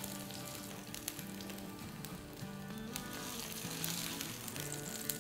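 Chicken mince patties sizzling and crackling in shallow oil in a frying pan, with a steady patter of small pops and a few sharper clicks. Soft background music plays underneath.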